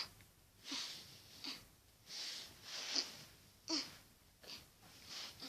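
A child's short breathy, hissing sounds, repeated about every three-quarters of a second.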